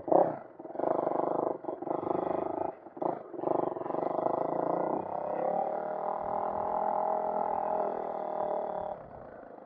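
2003 Honda CRF450R's single-cylinder four-stroke engine pulling under throttle, the throttle opened and chopped several times in the first three seconds, then held steady for about four seconds before backing off near the end. The engine has a freshly rebuilt top end (new rings, honed cylinder, rebuilt carburetor) and is being broken in.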